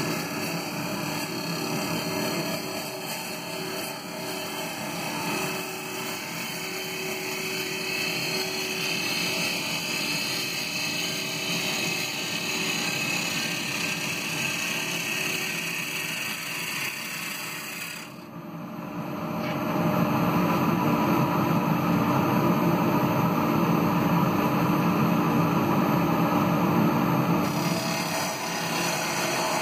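Wood lathe running while a gouge cuts the outside of a kiln-dried ash bowl, a steady scraping, hissing cut. About 18 seconds in it drops away briefly, then comes back louder.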